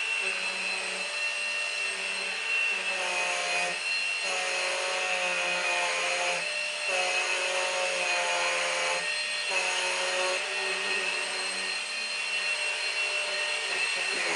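Numatic Henry Quick cordless vacuum cleaner running with a steady high whine, its lower note shifting and dipping every second or two as the head is worked over the sofa.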